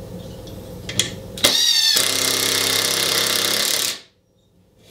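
Ridgid cordless impact driver on its medium-speed setting driving a deck screw into wood. The motor winds up in a rising whine, then hammers rapidly for about two seconds and cuts off suddenly.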